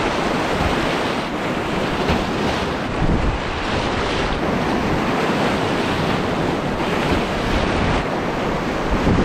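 Whitewater rapids rushing and splashing around and over the bow of a plastic whitewater kayak, a loud steady rush of water that swells and eases slightly from moment to moment.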